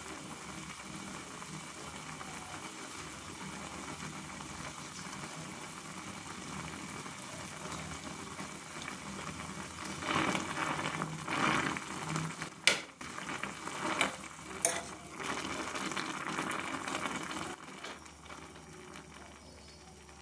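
Water boiling steadily around a block of instant noodles in a metal karai. About ten seconds in, a metal spoon stirs and breaks up the noodles, with louder splashing and two sharp clinks of the spoon against the pan, before the boiling settles quieter near the end.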